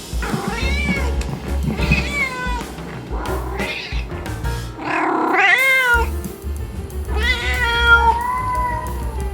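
A cat meowing again and again, about six meows in a row, each bending up and down in pitch, over background music.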